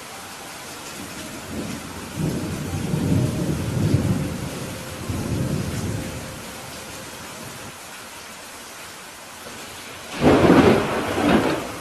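Steady rain with thunder: a low rolling rumble that swells and fades over the first several seconds, then a sharp, loud thunderclap about ten seconds in.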